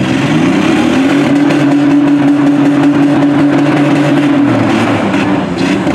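Demolition-derby minivan engine revving up in the first second, held at high revs for a few seconds, then dropping back just before the end.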